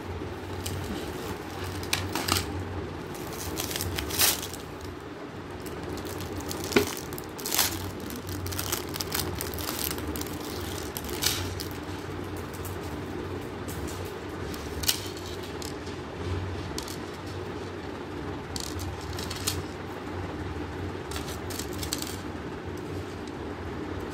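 Scattered rustles, crinkles and light clinks of a beaded metal jewelry piece and its wrapping being handled, over a steady low hum.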